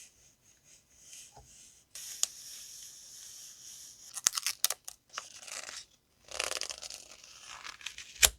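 Packaging being crinkled and torn open by hand, in bursts of rustling with scattered sharp clicks and one loud click near the end.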